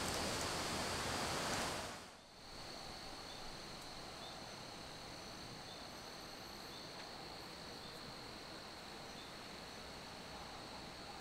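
A rush of wind or rustling leaves for about two seconds, cutting off sharply. Then a quieter evening outdoor ambience with a steady high insect drone and faint short chirps about once a second.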